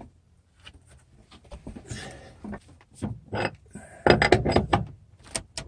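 Scattered knocks and clinks of hand work on a steel floor beam leveler and its post under a floor beam, with a louder cluster of knocks about four seconds in and two sharp clicks near the end.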